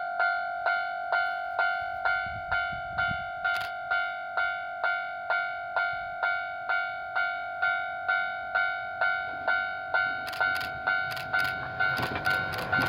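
Japanese level crossing warning bell ringing steadily, a pitched electronic ding about twice a second. Sharp clicks from the approaching train's wheels on the rails start about ten seconds in.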